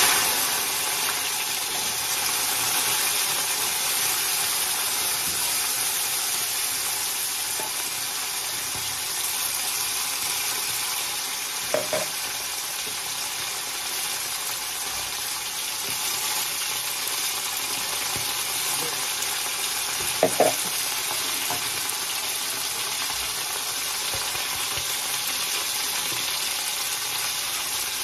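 Food sizzling in hot oil in a wok: a steady, dense sizzle, loudest at the very start and then settling. Two brief clinks sound partway through.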